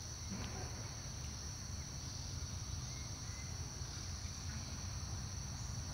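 Steady, high-pitched chorus of insects with a low background rumble, and a few faint short chirps about three seconds in.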